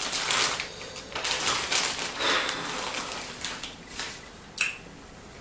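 Thin plastic bag crinkling and rustling as a hand digs in and pulls out a handful of wasabi-coated peanuts, with small clicks of the peanuts knocking together. A sharper click comes near the end.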